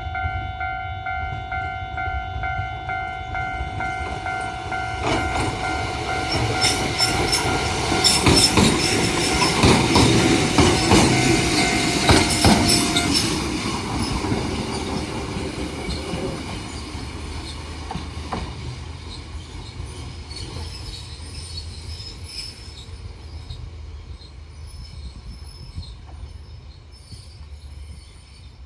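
A Kotoden Kotohira Line electric train passes over a level crossing while the crossing's warning bell rings steadily. Wheels clack over the rail joints with some wheel squeal, loudest around ten seconds in. The bell stops about 13 seconds in and the train's rumble fades away.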